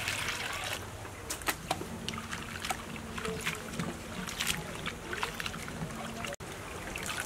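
Water poured from a jug into a steel bowl of cut bamboo shoots for the first second or so, then hands swishing and rubbing the shoots in the water, with small irregular splashes and clicks against the bowl.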